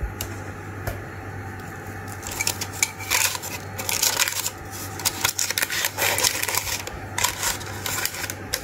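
Parchment paper crinkling and rustling as a hand pats and spreads flour over sourdough dough in a paper-lined stoneware pot. The rustling comes and goes from about two seconds in, over a low steady hum.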